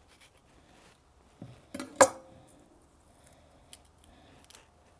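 A Global chef's knife and hands working a red bell pepper on a wooden cutting board: quiet handling with a few light knocks, and one sharp knock of the knife on the board about two seconds in.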